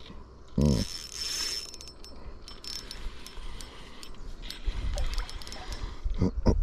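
Spinning reel working during the fight with a hooked hybrid striped bass: gears and drag clicking and whirring as the handle is cranked, with a buzzy whine about a second in. A short voice-like sound, the loudest thing, comes about half a second in, and another just before the end.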